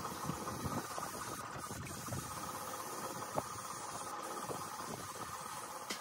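Machinery running steadily, with scattered light clicks and knocks and one sharper click about three and a half seconds in.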